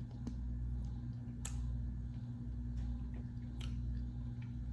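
A person eating ice cream: a few short wet mouth and spoon clicks, about four across the few seconds, over a steady low hum.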